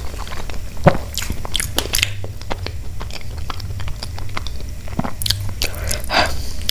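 Close-miked chewing: wet mouth clicks and smacks as a mouthful of food is chewed with the lips closed, with one sharp louder click about a second in.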